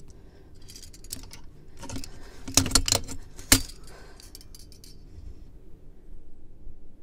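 A run of sharp clicks and light rattling of small hard objects being handled, sparse at first, then thickest and loudest around the middle with one sharp click standing out.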